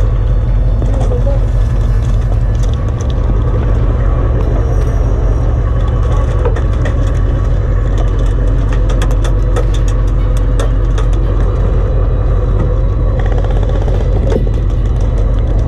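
Humvee diesel engine running steady and close, a deep even rumble, with scattered sharp clicks of airsoft gunfire through the middle.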